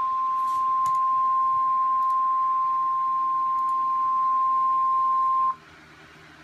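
Emergency Alert System warning tone, one steady high tone that cuts off suddenly about five and a half seconds in, announcing a severe thunderstorm warning. Faint radio hiss remains after it.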